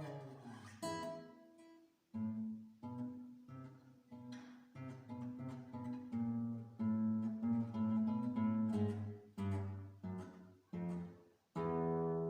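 Solo acoustic guitar playing a slow piece: plucked melody notes that die away over a repeated low bass note, with a full chord struck near the end.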